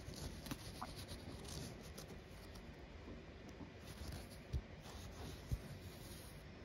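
Faint scratching and rustling of a needle and embroidery floss drawn through stamped cross-stitch fabric as fingers handle the cloth, with two soft thumps about four and a half and five and a half seconds in.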